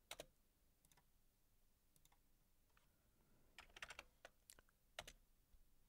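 Faint computer keyboard key presses: a few scattered taps, then a quick run of several about three and a half seconds in, then two more single taps.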